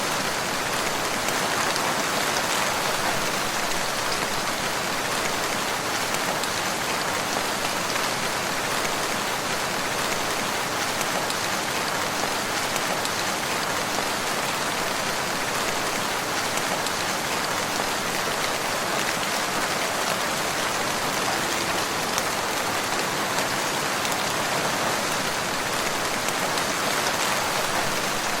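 Steady rain falling, an even hiss of many drops without thunder or breaks.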